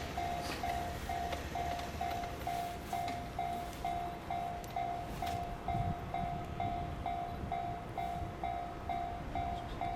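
Railway level-crossing warning bell ringing steadily, a single bell tone repeating a little over twice a second, the signal that a train is approaching the crossing. A low rumble runs underneath.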